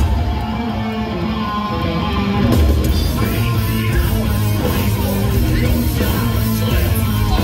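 Live heavy metal band played loud through a concert PA: distorted electric guitars over bass and drums. The sound gets brighter and fuller about two and a half seconds in.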